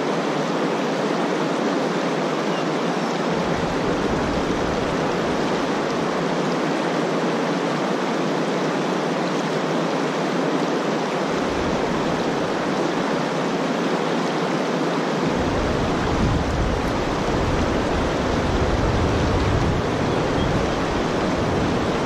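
River water rushing steadily over rocks in a shallow riffle, with a low rumble that comes and goes.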